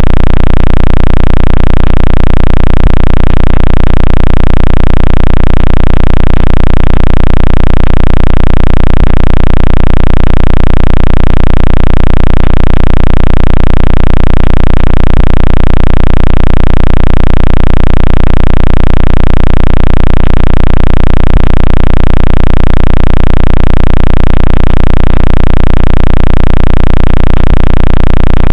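Synthetic phone water-ejection tone: a very loud, distorted deep bass tone that pulses a few times a second without change. It is meant to shake water out of a phone's speaker.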